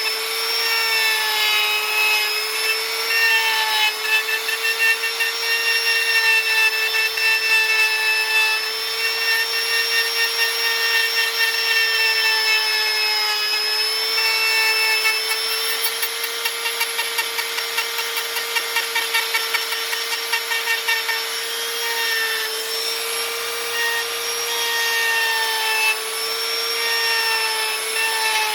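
High-speed electric carving tool running steadily and cutting wood, its whine dipping slightly in pitch as it bites, with a rapid chatter for a few seconds past the middle.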